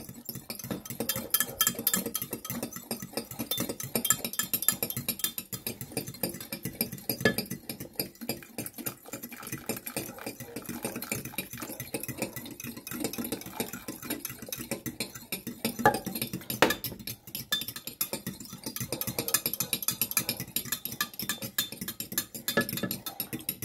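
Metal fork whisking egg yolks in a glass Pyrex measuring cup, a rapid run of light clicks against the glass, with a couple of sharper knocks about two-thirds of the way through. Hot bone broth is being added a little at a time to temper the yolks.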